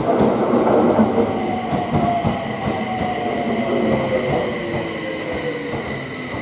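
Electric commuter train braking as it runs into the station: its motor whine falls slowly in pitch, over wheel and rail rumble and clatter.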